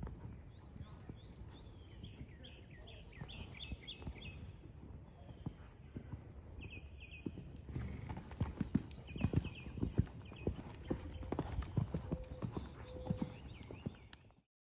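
Horse cantering and jumping on sand arena footing, its hoofbeats a run of dull thuds. They are faint at first and grow much louder about halfway through as the horse comes close and jumps, then stop abruptly near the end.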